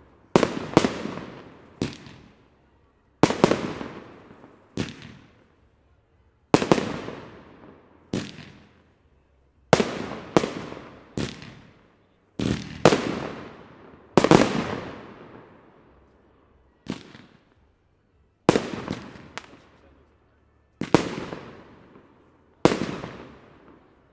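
Aerial fireworks bursting: a string of about a dozen and a half sharp bangs, irregularly spaced one to two seconds apart, each trailing off in a long echo.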